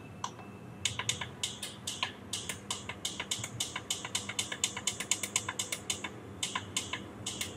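Rapid clicking of the push button on top of a Reacher AC182 digital alarm clock, pressed over and over to step the minute setting, about three or four clicks a second.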